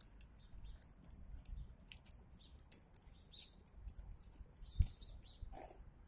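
Birds chirping, many short high chirps in quick succession over a low rumble, with a single low thump a little before five seconds in.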